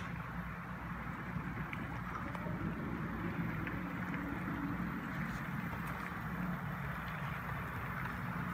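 HO-scale model train running on the layout: a CN SD70M-2 diesel locomotive hauling double-stack container cars, giving a steady hum and rumble of motor and wheels on the track.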